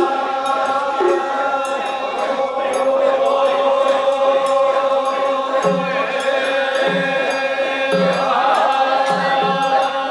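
A crowd of men chanting together in long, held tones, with light clicks throughout.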